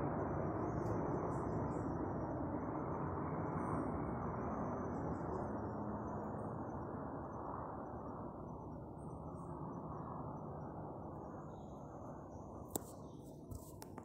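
Helicopter flying away, its rotor and engine noise fading steadily. Faint high chirps sound above it, and a few sharp clicks come near the end.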